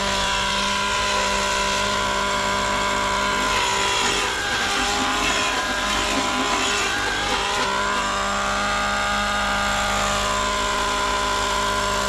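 Nitro RC helicopter in flight: its O.S. 105HZ-R two-stroke glow engine running with the rotor whine, pitch dipping and recovering twice. The engine is running really well now that its fuel regulator has been cleared of debris.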